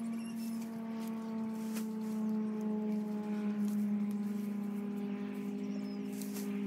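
A steady, humming drone of a distant motor, its pitch sinking slowly, with a few faint rustles or clicks.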